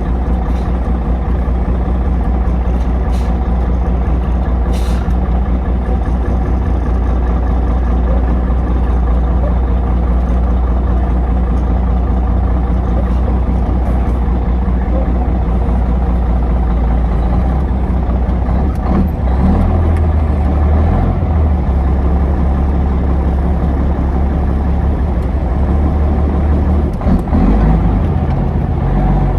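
Heavy truck's diesel engine running steadily under way. Its low note shifts about two-thirds of the way through and dips briefly near the end.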